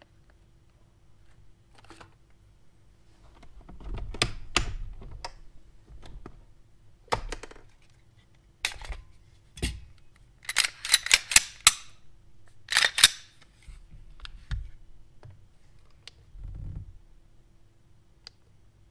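Sharp metallic clicks and clacks from a Glock 34 Gen 5 pistol being handled and its action worked, loudest in a quick cluster of five or six clicks about ten seconds in and two more a couple of seconds later. Scattered softer knocks and rustles come before, as parts in plastic bags are handled on the desk.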